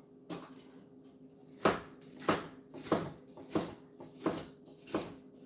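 Kitchen knife slicing a green bell pepper on a cutting board: a sharp knock on the board with each stroke, about six of them, evenly spaced at roughly one every two-thirds of a second, starting about a second and a half in.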